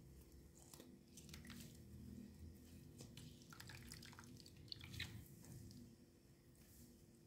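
Faint squelch of a wet sponge squeezed by hand over a plastic basin, with soapy water dripping and trickling into it as the sponge is rinsed. The drips thin out after about six seconds.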